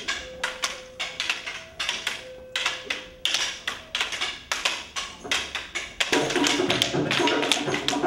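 Rattan training sticks clacking against each other in quick, irregular strikes, several a second. The clacking grows louder and denser about six seconds in.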